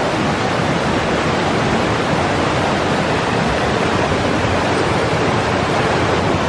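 Fast-flowing river water rushing in a loud, steady roar of noise.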